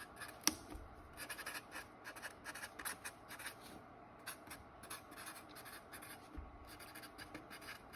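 Handwriting: a run of quiet, short, scratchy strokes of a writing tool as items are written onto a list, with one sharp click about half a second in.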